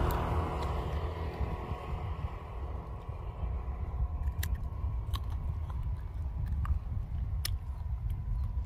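A passing car fades away at the start, leaving a low rumble. A few sharp clicks and light rustles come from a nylon cast net and its lead sinkers being gathered up in the hands.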